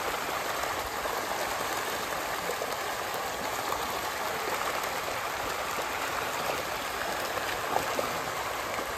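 A dense shoal of farmed fish splashing and churning at the pond surface in a feeding frenzy on feed thrown into the water: a steady rushing splash flecked with small plops, with one sharper splash near the end.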